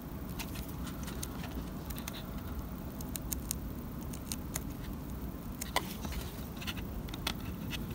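Irregular small clicks, taps and light scratches of fingers handling a plasticard model building wall and its plastic-rod window frame, with one sharper click a little before the end, over a low steady background hum.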